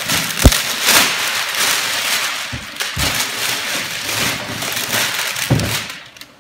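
Cardboard box and its packaging being opened and handled: continuous rustling and scraping, with a sharp knock about half a second in, dying away near the end.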